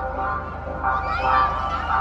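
Soundtrack music of a projection-mapping show: sustained tones with short gliding sounds over them about a second in.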